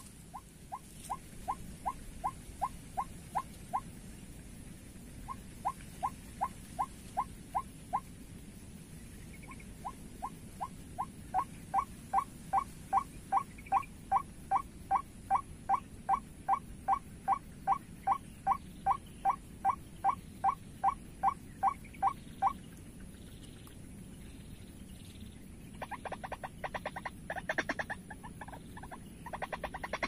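White-breasted waterhen calls: short, clear notes repeated about three times a second in three runs, the last and longest ending about 22 seconds in. Near the end comes a faster, harsher chatter.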